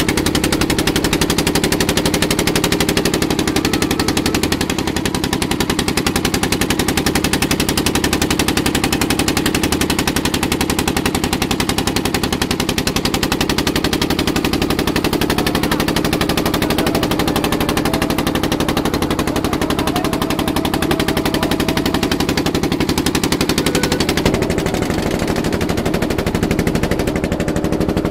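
Inboard engine of a wooden motor fishing boat running steadily under way, a rapid, even pulsing.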